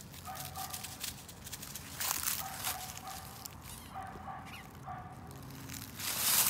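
A dog barking several times in short, faint barks, with footsteps crunching through dry fallen leaves that grow louder near the end.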